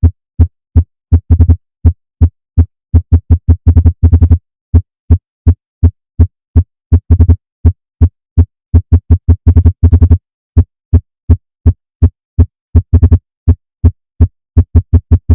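Emergency-alert-style alarm: a harsh, low buzzing tone sounded in dozens of short beeps at uneven spacing, some in quick runs and some alone.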